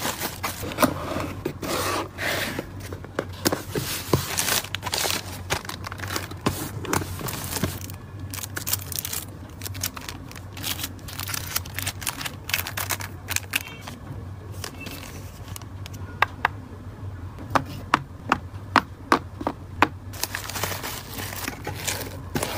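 Plastic packaging (cellophane and bubble wrap) being handled: crinkling and scraping with many sharp clicks and taps, a quick run of them in the second half.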